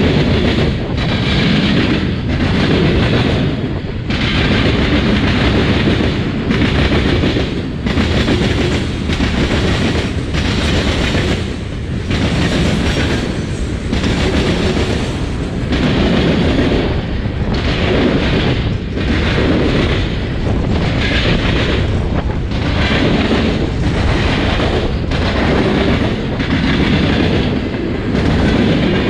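Freight train cars rolling past close by, steel wheels clattering rhythmically over the diamond crossing and rail joints in a loud, steady run.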